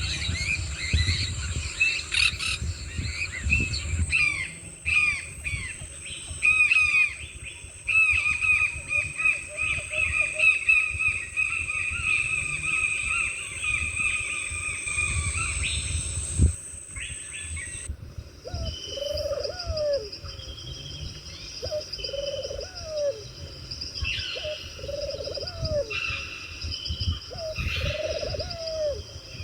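Birds calling in rapid repeated chirping phrases over a steady high insect drone. About 17 seconds in the scene changes abruptly to short, low, repeated bird calls over a different, lower steady insect drone.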